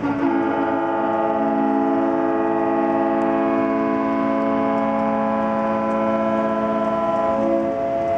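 Many yachts' ship horns sounding at once: sustained, overlapping steady blasts at different pitches that merge into a droning chord. One horn joins just after the start and a few drop out near the end.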